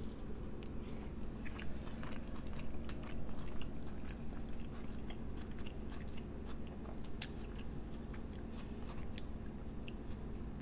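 Close-miked chewing and biting of a mouthful of poke bowl, with many sharp crunches and mouth clicks scattered throughout, over a steady low hum.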